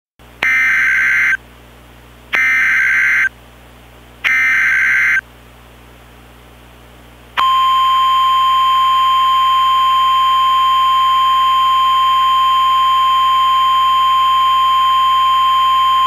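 Emergency Alert System SAME header: three bursts of screeching digital data tones, each about a second long. About two seconds after the last burst, the National Weather Service single-tone attention signal begins and holds one steady pitch.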